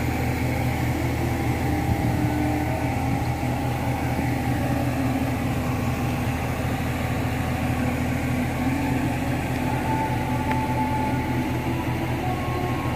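Heavy construction machine's engine running steadily with a low, even drone.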